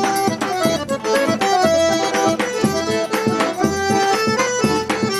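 Forró music: an accordion plays a melody over a steady, even drum beat, in an instrumental passage with no singing.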